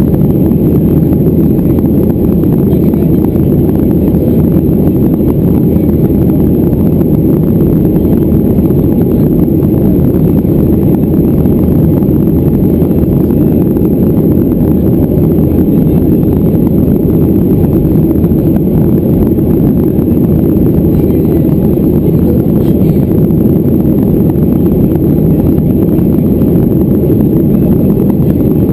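Steady engine and airflow noise heard inside the cabin of a Boeing 737-400 in flight, a constant low rumble with no change in pitch or level.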